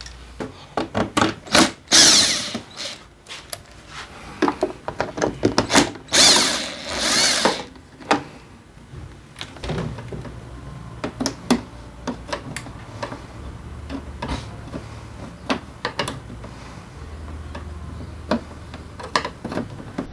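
Screws being taken out of a scooter's plastic front cowl: a run of sharp clicks and taps of the tool on plastic and metal, with two short whirring bursts of a power screwdriver about two and six seconds in. Later, scattered taps over a low steady hum.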